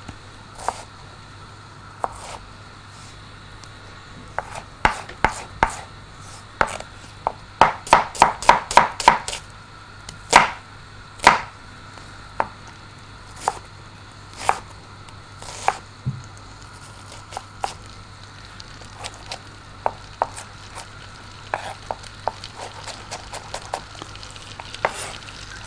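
Kitchen knife chopping an onion on a wooden cutting board: irregular sharp knocks of the blade hitting the board. About eight seconds in there is a quick run of cuts, four or five a second.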